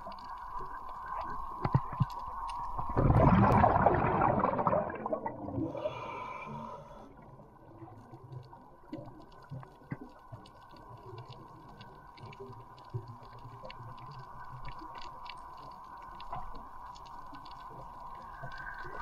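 Underwater ambience recorded by a submerged camera: a steady hum with scattered sharp clicks. A loud rush of water about three seconds in lasts a couple of seconds.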